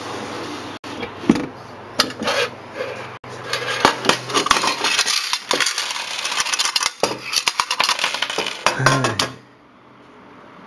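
A few metal clicks and knocks as a small red metal cash box is handled and opened. Then old square copper coins are tipped out and clatter and clink onto a hard tabletop for about five seconds, stopping suddenly as they settle.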